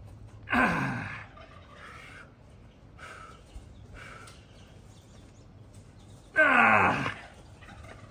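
A man groaning twice with effort during a workout; each groan is loud and falls in pitch, and fainter short breaths come between them.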